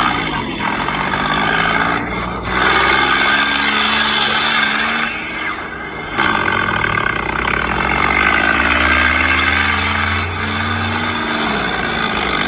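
A heavy vehicle's engine running loudly, its pitch rising and falling several times as it is revved.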